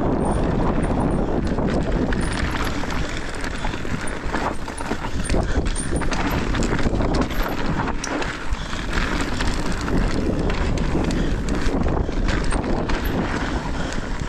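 Mountain bike riding fast down a dirt trail: tyres rolling over dirt and rocks and the bike rattling with many small knocks over the bumps, under a steady rush of wind on the microphone.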